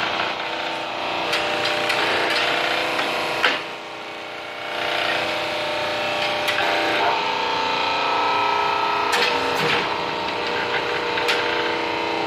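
Log-splitter hydraulic forging press running, its electric motor and hydraulic pump giving a steady whine with sharp clicks and knocks scattered through. The sound dips briefly a few seconds in, and a stronger tone takes over about halfway.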